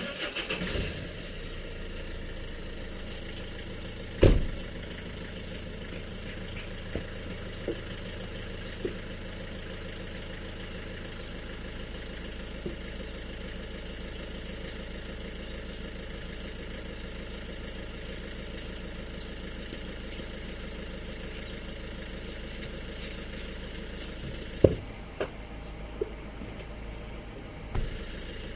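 Horsebox lorry engine idling steadily, with a loud sharp knock about four seconds in and a few more sharp knocks near the end.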